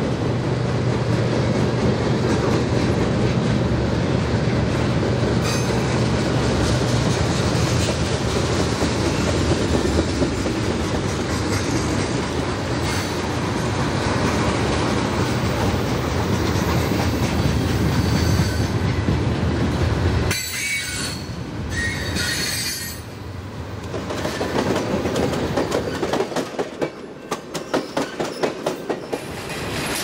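Freight train cars rolling past on steel rails with a steady rumble. Near the end the wheels clack over rail joints in an even rhythm, about three a second.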